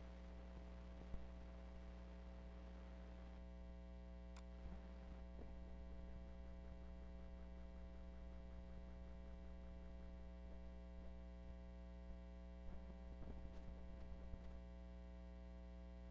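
Steady electrical mains hum with a stack of overtones, faint. A single sharp click comes about a second in, and a few faint knocks follow toward the end.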